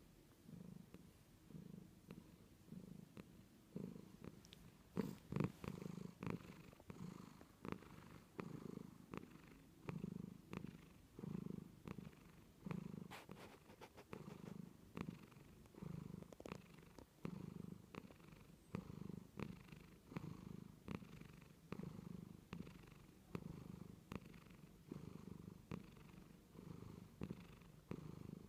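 A house cat purring faintly, the low purr swelling and easing with each breath, about once a second.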